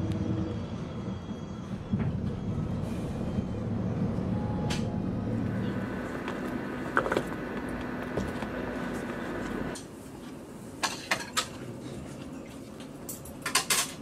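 Low steady rumble of a moving vehicle during the commute, giving way about ten seconds in to a quieter room hum with a few sharp clicks and knocks, then a quick cluster of clicks and clatter near the end.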